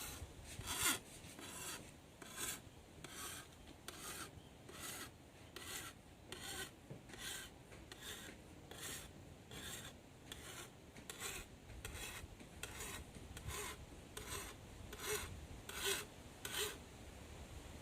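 Hand file rasping along the edge of a cane knife blade in steady, evenly spaced strokes, a little over one a second, putting an edge back on the blade. The strokes stop about a second before the end.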